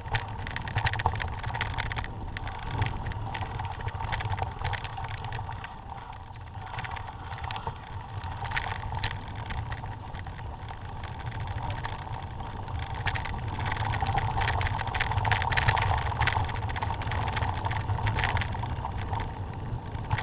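Mountain bike rolling over a stony dirt track, with tyres crunching on gravel and many small rattles and clicks from the bike. A steady low rumble of wind buffets the camera's microphone.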